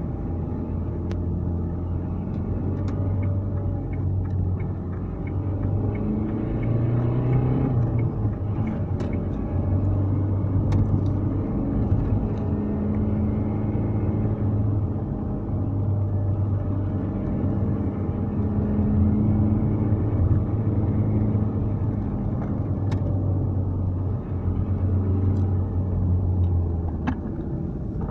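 Car engine and road noise heard inside the cabin of a Dacia Duster 4x4 on the move: a steady low drone that swells and eases every few seconds, with a few light ticks.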